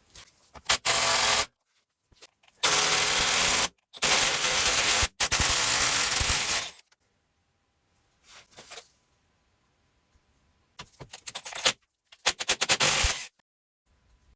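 Pneumatic air hammer running in several short bursts of rapid blows, beating at a seized ABS wheel speed sensor to free it from its mounting.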